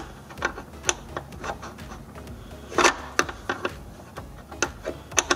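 Irregular metallic clicks and taps of a hand tool working a radiator fan mounting bolt, about two or three a second, the sharpest about three seconds in and again near the end.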